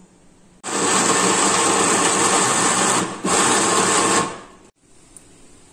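Electric mixer grinder (mixie) running with its lid on, grinding bananas, wheat flour and milk into a smooth batter. It runs for about two and a half seconds, pauses briefly, runs again for about a second, then stops.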